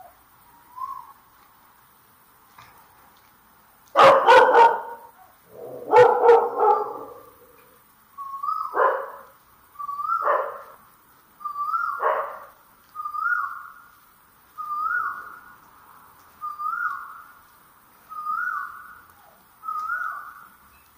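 A dog barking: two loud barks about four and six seconds in, then a steady run of shorter, higher, rising barks roughly every second and a half.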